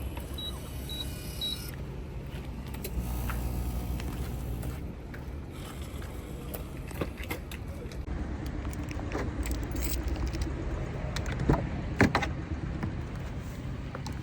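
Keys jangling and scattered clicks over a steady low rumble inside a small van, with three short high beeps about half a second apart near the start and two sharper clicks near the end.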